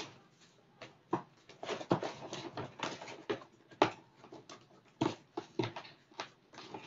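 Cardboard tool box being packed and closed by hand: rustling and scraping of the box and packing, broken by several sharp knocks and taps as the jigsaw and its flaps are pushed into place.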